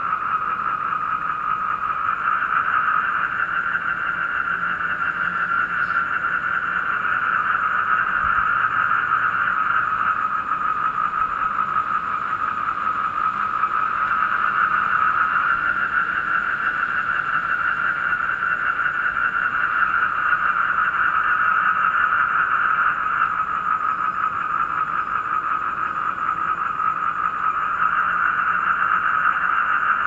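A dense night chorus of black-spectacled toads (Asian common toads) trilling without a break, the chorus swelling and easing every few seconds. Crickets call with it, and a faint high steady tone runs on above.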